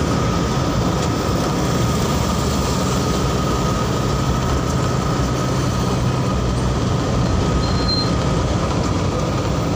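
Steady engine and road noise of a moving vehicle driving through city traffic, with a low hum and a thin steady whine.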